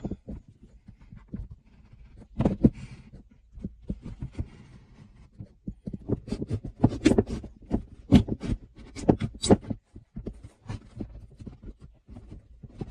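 Irregular knocks, taps and scrapes of hand construction work, with a run of sharper knocks from about six to ten seconds in.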